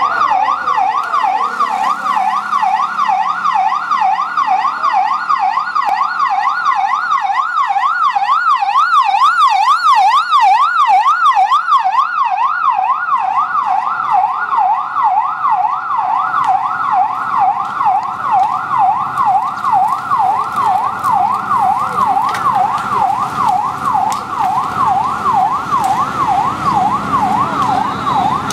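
Police car siren sounding a fast warble, its pitch swinging up and down a few times a second without a break. It grows louder about eight seconds in, then eases off a little.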